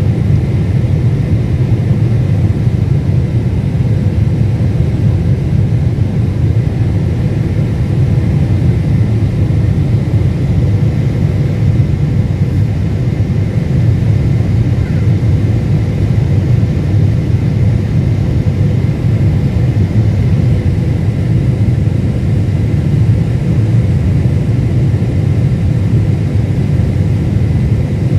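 Steady in-flight cabin noise of a Boeing 747-8, heard from a window seat beside the wing: a deep, even rumble of GEnx-2B engine and airflow noise, with a faint steady whine above it.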